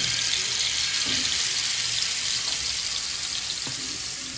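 Marinated chicken pieces sizzling in hot oil on a flat tawa, a steady frying hiss that slowly gets quieter.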